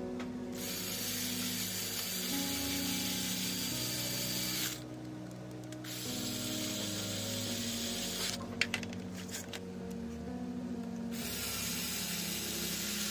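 Cordless drill-driver running in three bursts of a few seconds each, driving screws into the metal housing of an old electric drill, with a few sharp clicks between the second and third bursts.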